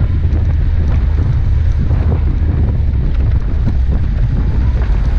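Steady wind buffeting the microphone over the low rumble of a 4x4 driving along a snow-covered track.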